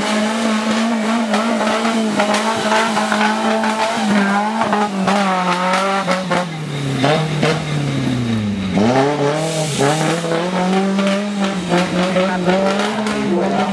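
Modified off-road 4x4's engine running at high revs as the truck drives through deep mud. The engine note holds steady, drops sharply about eight and a half seconds in, then climbs back up.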